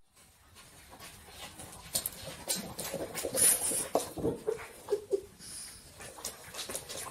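A dog whimpering and panting, with a few short whiny cries about four to five seconds in, among scattered clicks and rustles.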